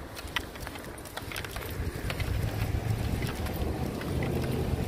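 Wind buffeting the microphone outdoors, a low rumble that grows louder about halfway through, with a few faint clicks over it.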